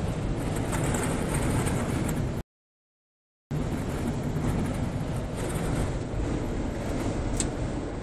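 Steady road and engine rumble from inside a car's cabin at highway speed. It cuts out to silence for about a second partway through, then resumes.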